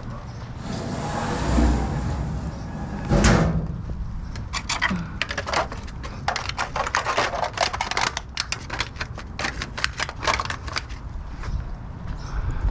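A single loud thud about three seconds in, then a quick, irregular run of sharp taps and clicks for several seconds, footsteps on hard ground.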